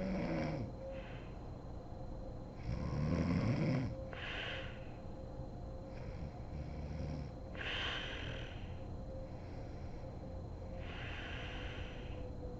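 A sleeping woman snoring, with the loudest rattling snore about three seconds in. It is followed by breathy, hissing breaths every three to four seconds.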